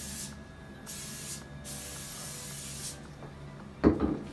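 A trigger spray bottle squirting stainless steel polish onto a microfiber cloth: the tail of one spray, a short spray about a second in, then a longer one of just over a second. Near the end comes a short, loud, muffled bump.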